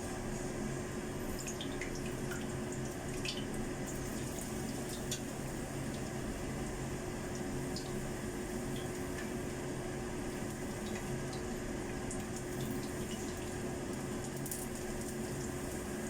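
Prawn crackers frying in hot oil: a steady sizzle with scattered small pops, over a steady low hum.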